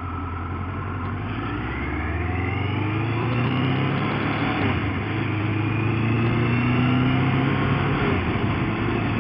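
Motorcycle engine accelerating, heard from the rider's helmet: its note rises over the first few seconds, dips briefly about five seconds in, then pulls on, while wind noise builds with speed.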